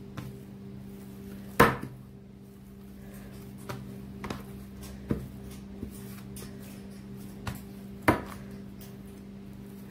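Pizza dough being kneaded by hand on a tray: irregular soft knocks as the dough is pressed, folded and pushed down, with two louder slaps, one about a second and a half in and one near the end. A steady low hum runs underneath.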